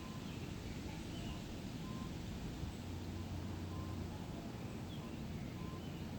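Forest ambience: a low, steady rumble with a few faint, short bird chirps scattered through it.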